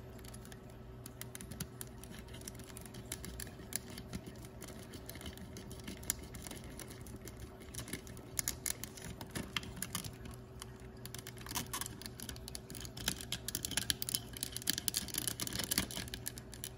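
Small hard-plastic toy parts of an I-Dog pup's head being handled and fitted together by hand, with scattered light clicks and taps that come thicker near the end, over a faint steady hum.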